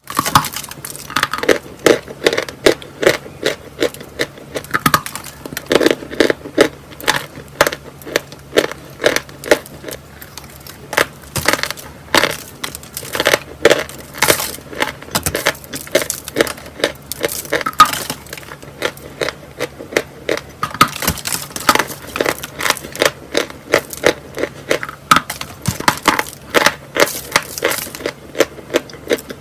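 A block of white chalk being bitten and chewed: a steady run of sharp, crisp crunches, about two a second.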